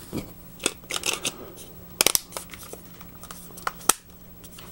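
Short plastic clicks and taps of a feature phone's battery and back cover being fitted and snapped shut, with a sharper cluster of clicks about two seconds in and a couple more near the end.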